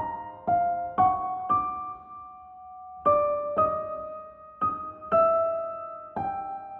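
Rendered piano playing a two-voice melody line: a lead with an imitating upper voice, passing from motif M2 to M3 in hocket and then M1. Separate struck notes about every half second, each ringing on and fading, with a held pair of notes about two seconds in.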